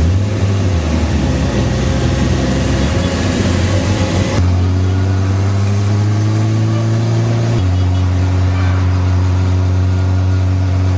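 Motorcycle engine running steadily at road speed, heard from on the bike with wind rush over it; its note rises slowly in places. The sound changes abruptly twice, a little before halfway and about two-thirds through, where the recording is cut.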